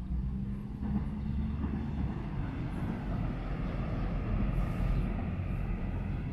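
A passing motor vehicle's rushing noise with a low rumble, building about a second in and holding steady.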